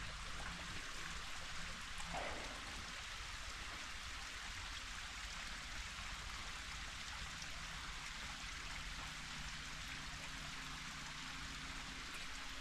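Small creek running, a steady, even rush of water.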